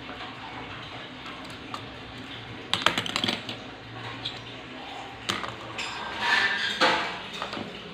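A plastic ballpoint pen clattering and tapping on a laptop keyboard and a wooden desk while a kitten paws at it and at the keys. The sound comes in short bunches of clicks and knocks: one about three seconds in, a single knock a little past five seconds, and a louder, busier stretch around six to seven seconds.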